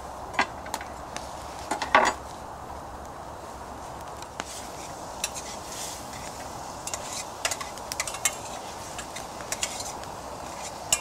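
Metal utensil clinking and scraping in a pan as minced meat is stirred and browned on a gas burner, over a steady hiss. The loudest clatter comes about two seconds in, with lighter clinks after.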